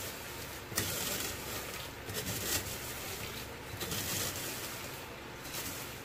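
Fried peanuts rustling and clattering in a plastic colander as they are stirred with a metal spoon to toss them with salt and seasoning, in several bursts, over a faint steady low hum.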